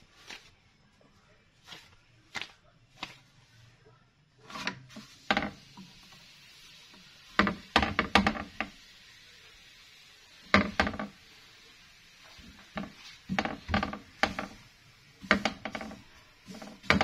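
Scattered short knocks and clatters, some single and some in quick clusters of several, from a tortilla being cooked and handled on a tawa griddle.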